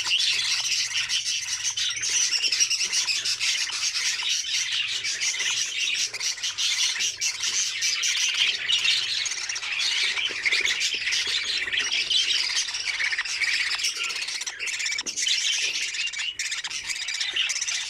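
Budgerigars chattering, chirping and squawking continuously, many calls overlapping at once.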